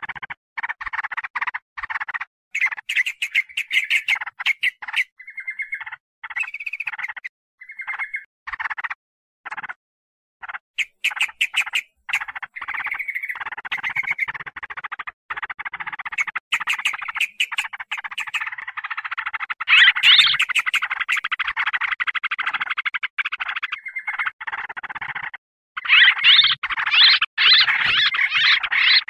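Yellow-vented bulbul (trucukan) calls played as a bird-lure recording: busy, noisy chattering. The chatter comes in stop-start bursts at first, runs almost without a break through the second half, and is loudest near the end.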